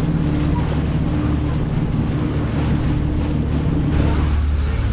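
Tour boat's engine running steadily with a low hum, under a rush of wind and water noise; the deepest part of the hum grows stronger about four seconds in.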